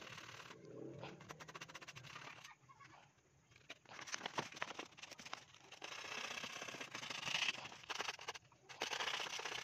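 Light clicks and scratchy scraping as a thin steel wire is worked by hand against a hard surface, with longer spells of scraping after the middle and again near the end.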